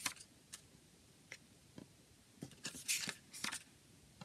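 Paper pages of a CD booklet turned by hand: a few soft flicks, then a louder run of rustling about two and a half to three and a half seconds in.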